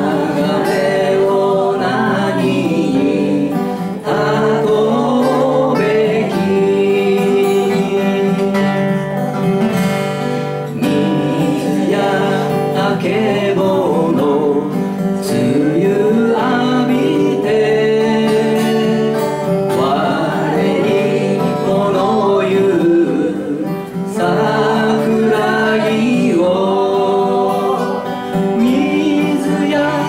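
A man singing a Japanese song in phrases, accompanying himself on acoustic guitar.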